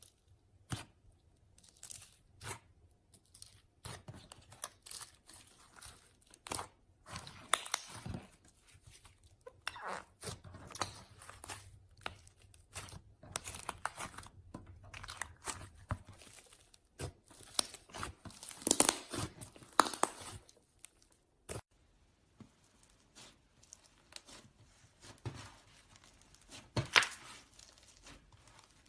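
Hands squeezing and stretching slime, making a run of irregular crackles, pops and sticky tearing sounds. The crackling is busiest and loudest in the middle and thins out over the last few seconds.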